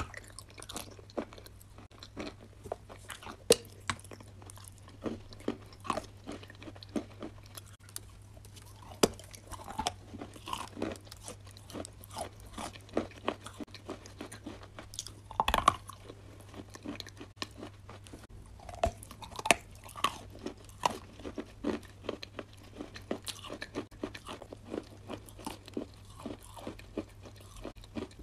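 Biting and chewing a brown edible clay block with a creamy white paste filling: many sharp, irregular crunches all through, over a low steady hum.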